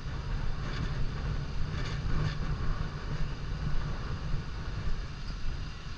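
Steady, rumbling outdoor noise: the distant roar of Horseshoe Falls' water with wind buffeting the microphone, the level wavering up and down.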